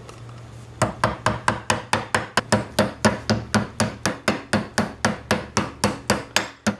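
A hammer rapidly tapping a new grease seal into a 1965 Ford Falcon front wheel hub held in a vise, about four metal-on-metal blows a second, starting about a second in.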